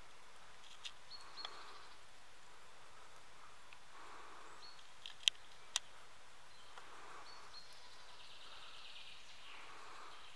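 Woodland ambience with small songbirds calling over and over, a burst of song every few seconds, one of them a quick descending run of notes near the end. Two sharp clicks about half a second apart stand out near the middle.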